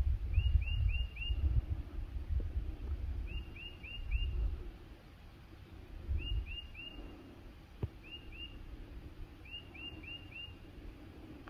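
A songbird singing a phrase of four quick, identical slurred whistles, repeated about every three seconds, over a low rumble that fades after the first few seconds.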